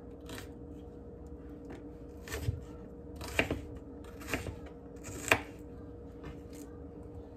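Knife chopping a red onion on a plastic cutting board: separate, irregular knife strokes, the strongest four about a second apart in the middle, over a faint steady hum.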